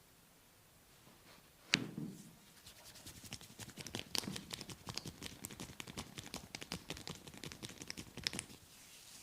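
Head massage sounds: a single sharp snap about two seconds in, then a fast, irregular run of crisp taps and scratches as hands work the scalp and hair, with another sharp tap near the end.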